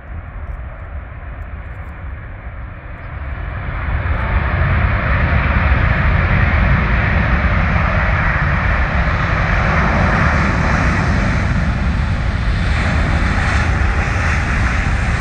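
Airbus A380 jet engines rumbling as the airliner rolls along the runway, growing steadily louder, with a sharp rise about four seconds in, then a sustained loud roar.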